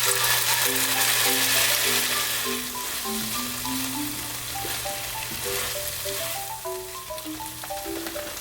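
Food sizzling in hot oil in a frying pan, loudest for the first few seconds and then easing off, under light background music of short, plucked-sounding notes.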